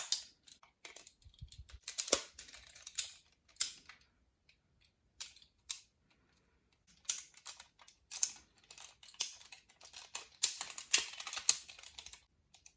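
Folded paper being handled and fitted together: irregular crinkling rustles and small clicks in quick clusters with short pauses between.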